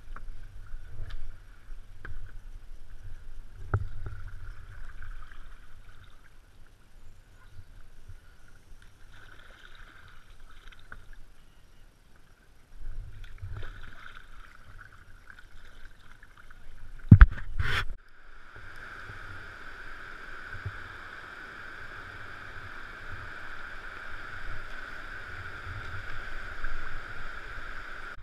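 Kayak paddle strokes splashing and dripping on slow river water, with a sharp knock about two-thirds of the way in. Right after it the sound switches abruptly to a steady rush of water pouring over a small weir.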